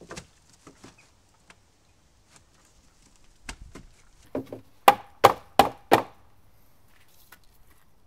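Mallet knocking the wooden rails and stiles of a glued door frame together: a few light taps, then four sharp knocks about a third of a second apart near the middle.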